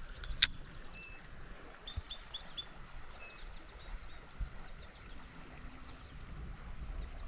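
Small bird calling, a quick series of short chirps about a second in, with scattered single chirps later, over steady background noise. One sharp click sounds about half a second in.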